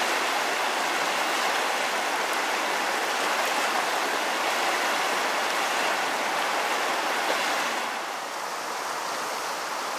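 Steady rush of a mountain river's running water, dropping a little in level near the end.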